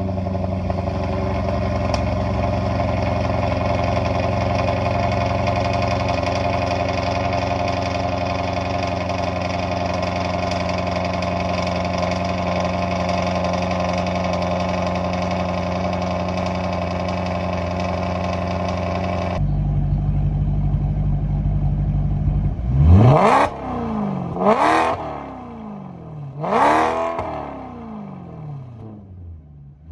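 Maserati Quattroporte S 4.7-litre V8 exhaust holding a steady fast idle after a cold start, then switching abruptly to a lower idle about 19 seconds in. Three quick revs follow, each rising and falling in pitch, with another starting right at the end.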